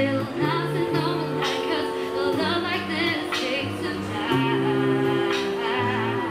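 A cappella group singing in close harmony through microphones: women's voices hold chords over a low sung bass line that steps between notes, with a beatboxer's vocal percussion keeping a steady beat.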